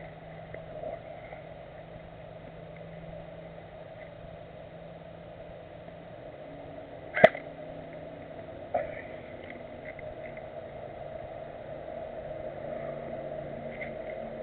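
Airsoft gun firing two sharp shots about halfway through, a second and a half apart, the first much louder, over a steady background hiss.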